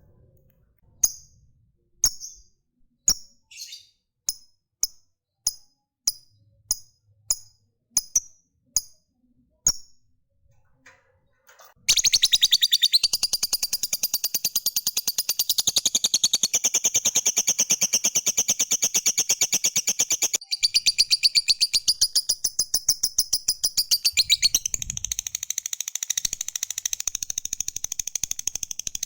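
Lovebird calling: single sharp, high chirps spaced about half a second to a second apart, then, after a short pause, a long, very rapid, continuous high-pitched chatter. This is the 'ngekek' trill that hobbyists prize, with a brief break about eight seconds into it.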